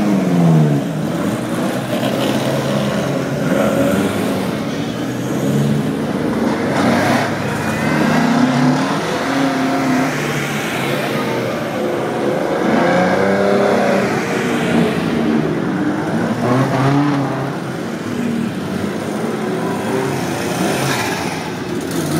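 Several classic racing car engines idling and being revved, their pitch rising and falling in repeated throttle blips that overlap, as the cars pull slowly through the start lane.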